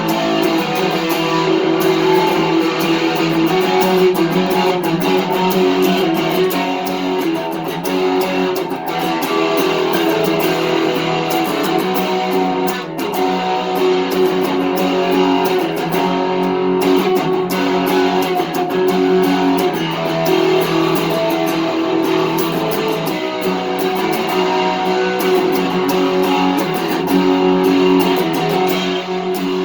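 Electric guitar with GFS Lil' Killers humbuckers wired for coil-splitting, played without a break, with notes and chords changing often.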